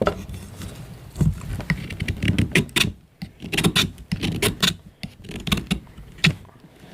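Stanley multi-tool knife blade cutting in a string of short scraping strokes, roughly one a second.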